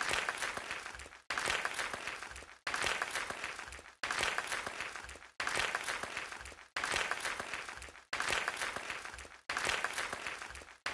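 Audience applause as a short snippet repeated in a loop: it starts abruptly about every second and a half, fades a little, then cuts off before starting again.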